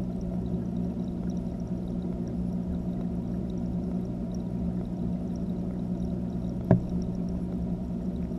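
Steady underwater hum and water churn inside an aquarium, heard through a GoPro's waterproof housing, with a single sharp knock about two-thirds of the way through.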